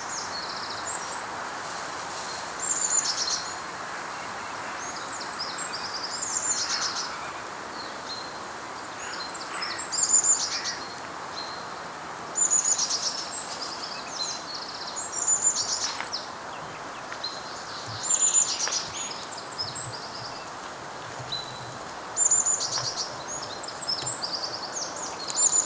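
A songbird singing short phrases of quick, high chirps and trills, repeated about eight times at intervals of a few seconds, over a steady outdoor background hiss.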